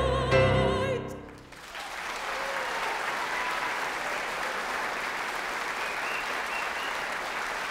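A mezzo-soprano's final held note with vibrato over piano, cutting off about a second in, followed by steady audience applause.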